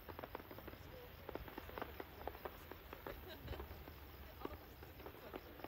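Distant fireworks crackling: a faint, irregular stream of small pops and snaps from crackling stars, over a low background rumble.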